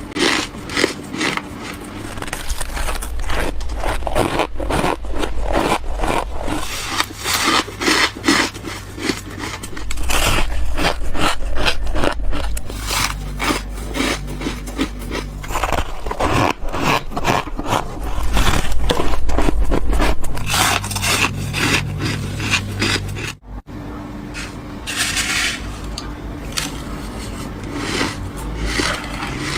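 Close-up biting and chewing of freezer frost: a dense run of irregular crunches and squeaks, with a brief break about three-quarters of the way through.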